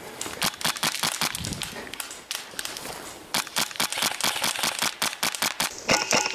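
Footsteps crunching through twigs and undergrowth, with irregular crackles and gear rattling. Near the end a Polarstar HPA airsoft rifle starts firing a fast, even string of sharp shots.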